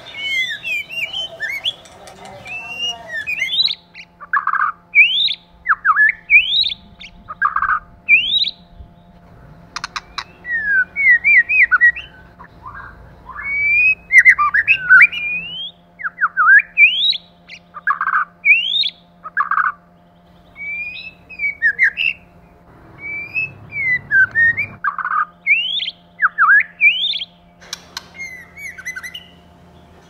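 White-rumped shama singing: a string of short whistled phrases, many of them quick rising notes, with lower, fuller notes in between.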